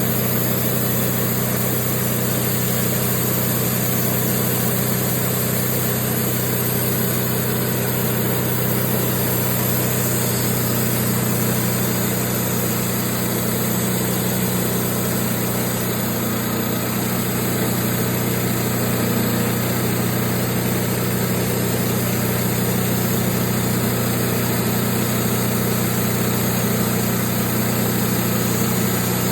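Wood-Mizer LT15 Wide bandsaw mill running at a steady pitch and level, its motor humming without change.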